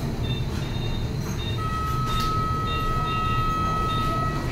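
Operating-theatre equipment running: a steady low rumble, with a continuous electronic tone that comes on about a second and a half in and holds for nearly three seconds, and a few faint short beeps.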